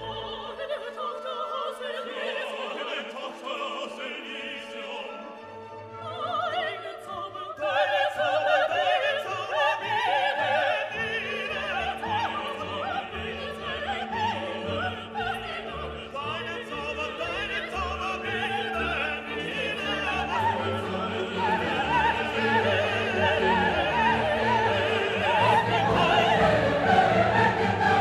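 Background classical music: an orchestra with operatic singing, growing fuller and louder about eight seconds in.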